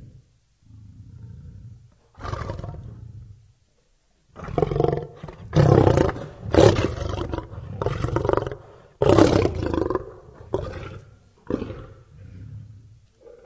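A lion roaring in a series of calls. Two softer calls come first, then a short pause, then a run of loud full roars through the middle, tapering to shorter, quieter calls near the end.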